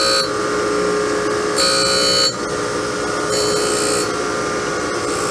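Surface grinder running with a steady motor and spindle whine while its wheel dry-grinds a straight-edge casting. The grinding hiss swells about every two seconds, once per pass as the table is cranked back and forth under the wheel, taking a light skim cut of about a thou.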